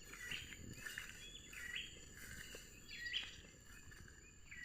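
Short bird chirps repeating about once a second over a steady, high, thin insect drone.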